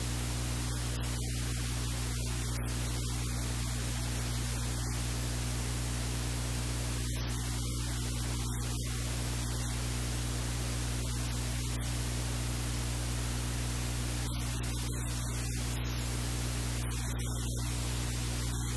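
Steady hiss with a low electrical hum underneath: noise and mains hum on the recording, with no other sound standing out.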